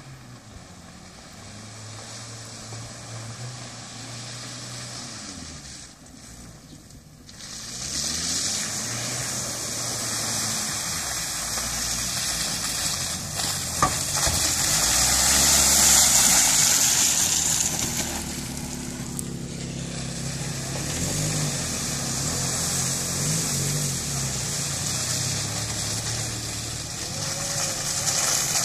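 Suzuki Vitara SUVs driving through deep mud, their engines revving up and down as they work through the ruts, with a steady hiss over it. The sound gets louder about eight seconds in.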